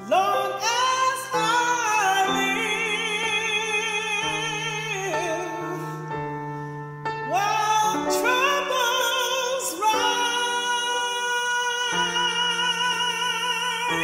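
A woman singing a slow gospel hymn with wide vibrato, accompanied by piano. She sings two long phrases, and the piano holds chords in the gap between them.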